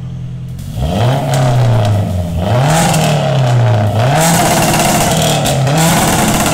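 Turbocharged 2005 Acura RSX Type S four-cylinder engine idling, then revved about four times from about a second in, the exhaust pitch rising and falling with each rev. It breathes through a 3-inch downpipe stepped down to a 2.5-inch system with a small resonator and a bullet muffler.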